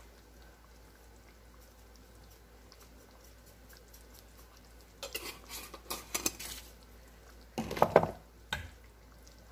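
Kitchenware being handled: a few light clinks about five seconds in, then a louder knock near eight seconds and a smaller one just after.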